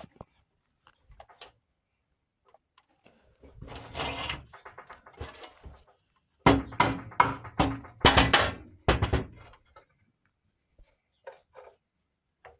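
Metal engine parts and hand tools being worked during teardown of a Briggs & Stratton 11 hp engine: a scraping, rustling stretch, then about halfway through a run of sharp metallic knocks and clanks with a slight ring.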